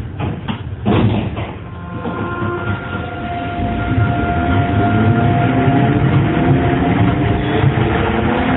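Astram Line 6000 series rubber-tyred train accelerating under shunt-wound chopper control: a steady low rumble with a thump about a second in, then motor tones rising together in pitch from about two seconds, joined by a steady chopper tone that fades near the end. The motor note is low rather than a high whine, and the uploader calls it abnormal (an odd-sounding car).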